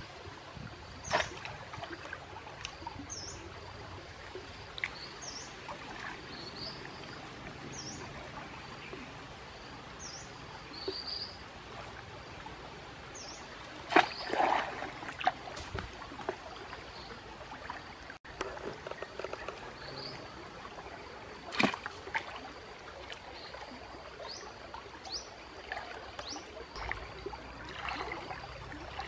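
Shallow stream water trickling and splashing around a wading person, with a few sharp knocks as a wooden spear jabs among roots and leaves on the bank, the loudest about halfway and again about three quarters through. A bird chirps over and over with short high calls.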